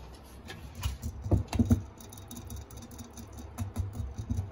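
Light, irregular clicks and taps from a Holland Lop rabbit in a wooden hutch. There is a louder cluster with dull thuds about a second in, and a quick run of small ticks near the end as it licks at the metal sipper tube of a glass water bottle.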